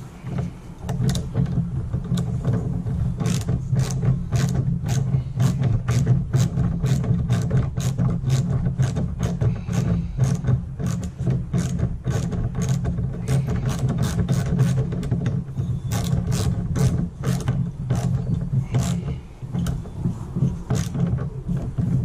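Small socket ratchet clicking in a long run of short strokes, a few clicks a second, as a wiper arm's mounting nut is tightened onto its spindle. A steady low hum runs underneath.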